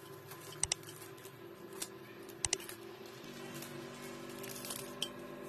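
Quiet handling of a roll of phyllo dough being unrolled from its plastic film: light rustling with a few sharp clicks, two of them quick double clicks about a second and two and a half seconds in, over a faint steady hum.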